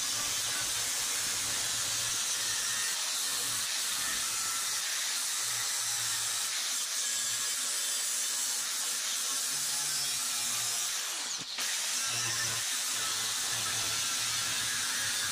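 Handheld angle grinder with a cutoff wheel cutting through steel plate, running steadily, mostly high-pitched. It briefly eases off about eleven seconds in, then picks up again.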